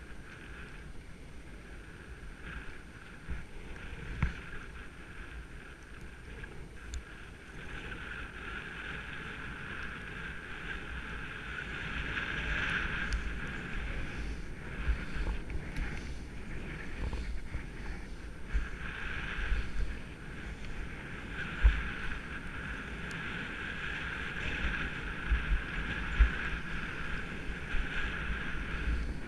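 Skis hissing over snow on a downhill run, louder from about a third of the way in, with wind buffeting the microphone in gusty low rumbles and a few short knocks.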